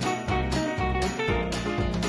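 Upbeat Christmas-style background music with jingle bells over a bass line, keeping a steady beat of about two a second.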